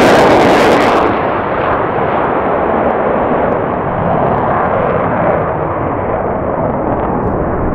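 Jet noise from a low, fast fighter jet passing close. About a second in the hiss cuts off, and a deep rumble slowly fades as the jet flies away.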